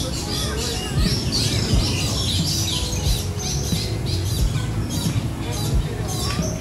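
Many birds squawking and chirping at once, short calls overlapping throughout, over a steady low rumble.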